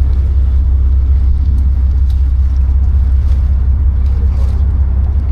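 Charter fishing boat's engine running with a loud, steady low rumble.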